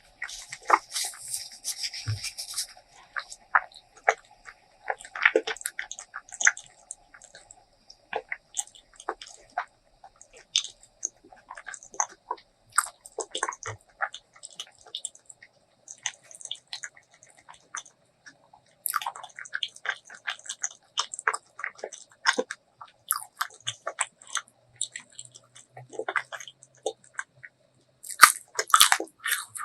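Close-miked eating: a person biting and chewing food in irregular, crunchy clicks.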